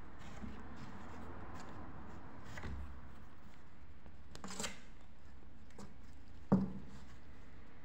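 Kittens moving about on a cloth sheet: soft rustling and claw scratching on the cloth and plastic, with a few light clicks, a brief crackle past the middle and a sharper knock near the end.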